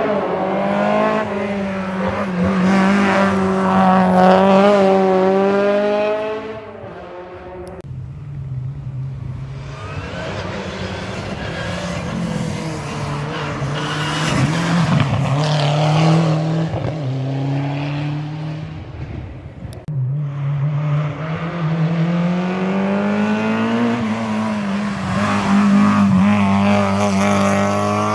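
Historic rally cars driven hard, one after another: each engine revs up and down through the gears as the car goes by. There are three separate passes, with a break about seven seconds in and another about twenty seconds in.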